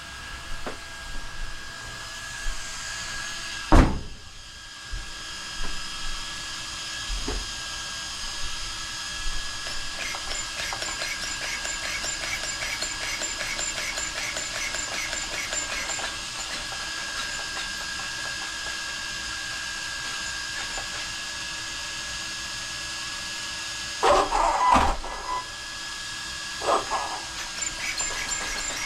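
Electric drivetrain of a Traxxas XRT RC truck running slowly, a steady whine with fast ticking in the middle. A sharp knock comes about four seconds in, and a few louder clunks near the end.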